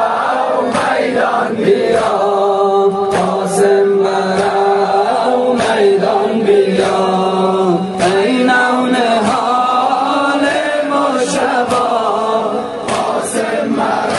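A Shia Muharram lament (nowheh) sung by a male chorus, with long held notes and sharp strikes here and there.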